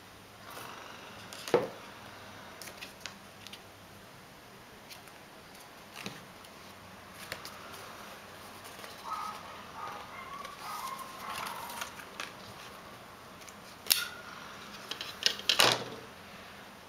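Hands handling the iPhone 3G's cardboard packaging and inner tray on a desk: scattered clicks, taps and rustles. There is a sharp knock about a second and a half in and a quick run of knocks near the end.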